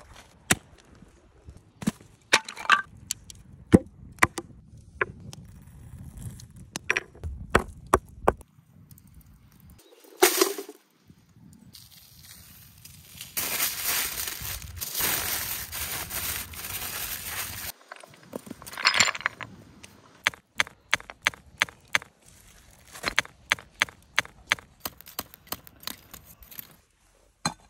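A sequence of close, hands-on sounds: a spade blade striking and cutting into grassy soil with sharp separate knocks, then aluminium foil crinkling steadily for several seconds while being wrapped, then runs of quick clicks and knocks from firewood being handled.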